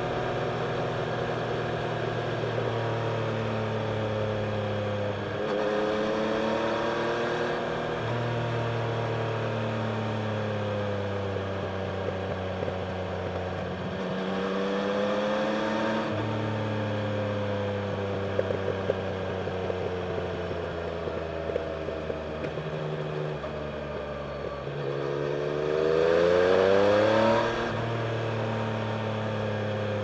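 Yamaha Tracer 900's three-cylinder engine through a Scorpion aftermarket exhaust, heard from the rider's seat while riding. The revs fall and climb again through a series of bends. About 25 seconds in there is a long pull up through the revs, the loudest moment, which ends in a sudden drop as it shifts up.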